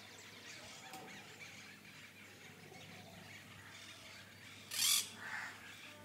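Faint outdoor background, broken about five seconds in by one short, loud, harsh animal call.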